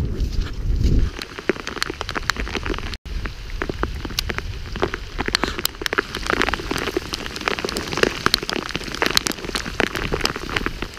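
Rain falling, with many individual drops striking close to the microphone as a dense, irregular spatter of sharp ticks. A low rumble covers the first second and stops abruptly.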